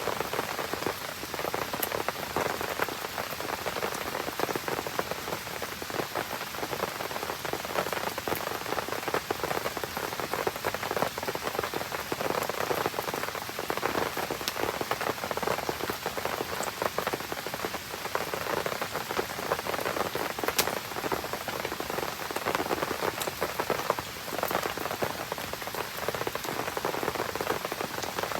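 Steady rain falling and pattering on surfaces, with a few sharp pops from a wood campfire, one loud one about two-thirds of the way through.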